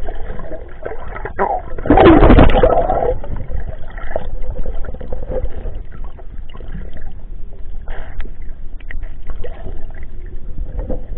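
Seawater sloshing and gurgling, with a louder rush of water about two seconds in that lasts about a second.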